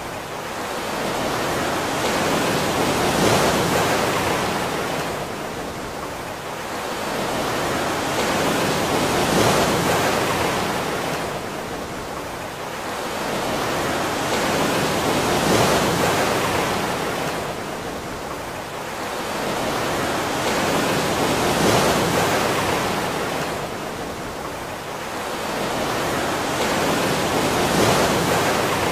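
Ocean surf: waves washing in and out, a rushing water noise that swells and fades about every six seconds.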